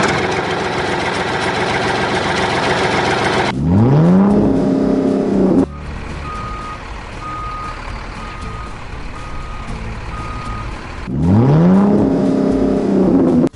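Truck sound effects, as from a toy vehicle's sound module. An engine runs loudly, then revs up with a rising pitch twice, each rev held about two seconds and cut off sharply. Between the two revs comes a series of evenly spaced reversing beeps.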